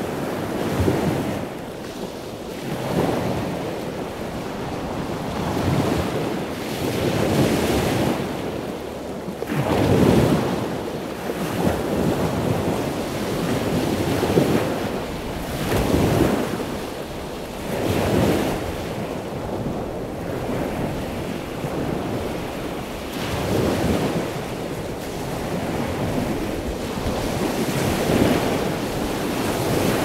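Ocean surf: waves breaking and washing up a sandy beach in a continuous rush that swells and eases every few seconds.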